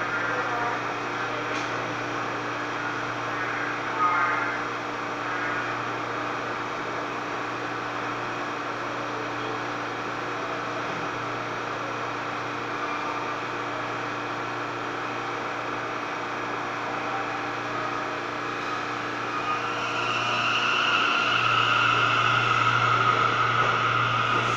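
New York City subway train standing at the platform, its onboard equipment giving a steady hum with a low drone. About 20 seconds in, the noise grows louder with a rising hiss and whine as another subway train approaches along the tunnel track.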